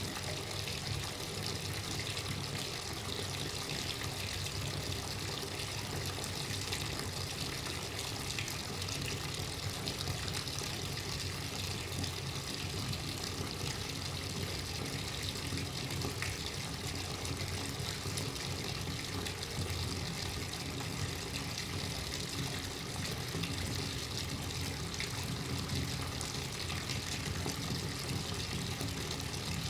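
Bathtub faucet running steadily, water pouring into the tub.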